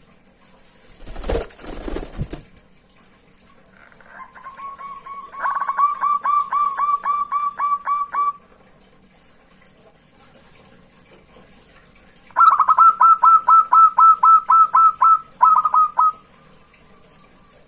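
Zebra dove (perkutut) song: two runs of rapid staccato cooing notes, about four a second, the second run slightly higher and louder. A short rustling burst comes about a second in.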